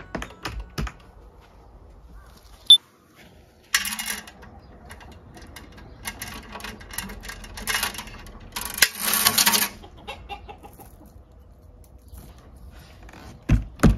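Small metal chain rattling and clinking in short spells with sharp clicks as the chain lock on a folding aluminium step is unhooked, with a couple of dull knocks near the end.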